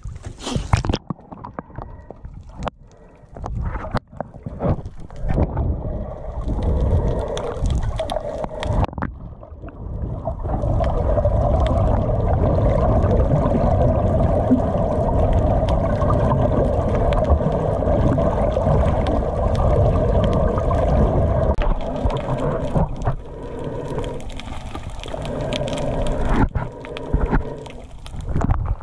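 Muffled sound from a camera in seawater: splashing and gurgling as it moves at and through the surface, with a steady low drone for about ten seconds in the middle.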